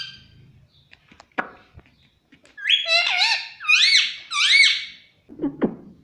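Rose-ringed parakeet giving high, squeaky calls: a quick run of about five rising-and-falling notes in the middle, with a single sweeping squeak a little earlier and a short lower call near the end.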